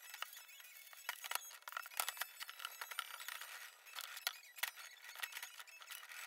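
A metal brake caliper being handled and scrubbed by hand in a steel tray: scattered light clinks, knocks and scrapes of metal on metal.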